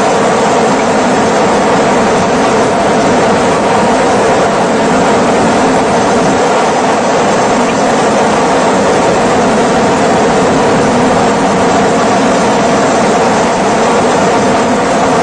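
Loud, steady drone of a helicopter's engine and rotor.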